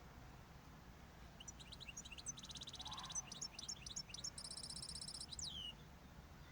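Male zebra finch singing one song phrase: quick chirps broken by two buzzy, rattling stretches, ending in a falling note. It is the courtship song of a pair in breeding condition.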